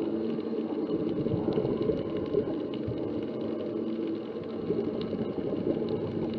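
Underwater ambience picked up by an action camera while diving: a steady, muffled low rumble with a faint hum and scattered light ticks.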